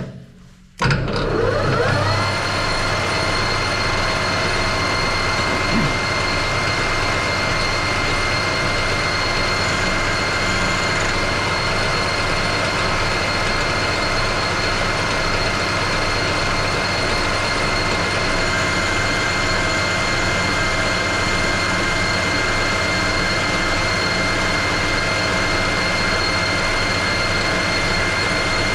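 Metal lathe starting up. The spindle and four-jaw chuck spin up with a rising whine about a second in, then the lathe runs steadily at higher revs for a finishing cut, with a constant high gear whine over a steady hum.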